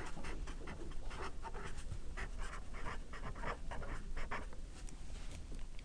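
Felt-tip marker scratching and squeaking on paper in short, irregular strokes as two words are handwritten.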